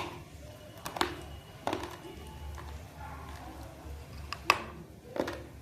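Chunks of raw multani mitti (Fuller's earth clay) being bitten and crunched between the teeth, close to the microphone: about five sharp, dry crunches at irregular intervals, with soft chewing between them.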